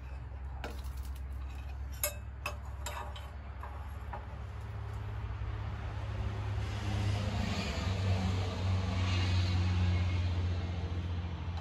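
Spoons and bowls clinking a few times as food is served. Then a low, steady rumble swells over several seconds and eases off near the end.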